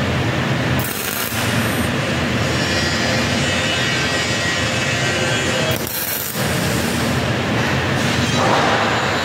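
Steady low rumble of workshop machinery, briefly dipping twice. About eight seconds in, a MIG welding arc starts hissing as a tack weld is laid on the steel frame.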